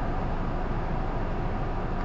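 Isuzu PKG-LR234N2 (Erga Mio) city bus running: a steady diesel engine drone mixed with road noise, holding even throughout.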